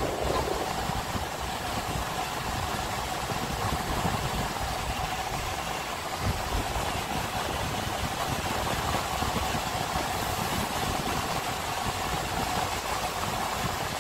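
Steady engine and road noise of a car driving, heard from inside the cabin.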